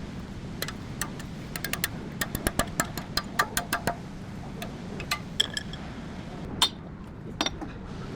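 Irregular metallic clinks and taps of hand tools and parts being handled, some ringing briefly, in a quick cluster early on and a few sharper knocks later, over a steady low hum.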